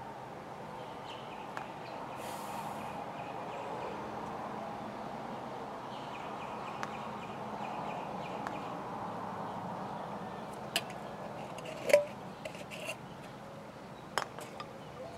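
Steady outdoor background hum. In the last few seconds come several sharp clicks and knocks as small containers are handled and set down among other jars, one about twelve seconds in louder than the rest.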